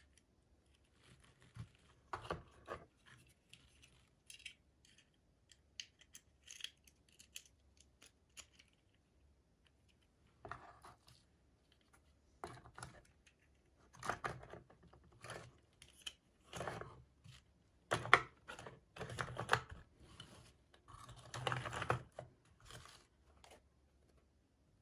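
Miniature toy packaging being handled and opened by hand: irregular crinkles, snips and small plastic clicks, busier in the second half.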